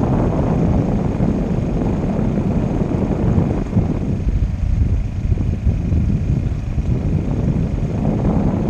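Steady, loud low rumble of wind buffeting the microphone, with a faint steady high whine underneath.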